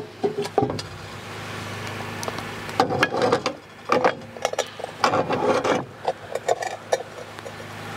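Cast iron camp Dutch oven lid lifted off with a metal lid lifter and set down on a lid stand: scattered metal clinks and scrapes, in clusters about three, four and five seconds in. A steady low hum runs underneath.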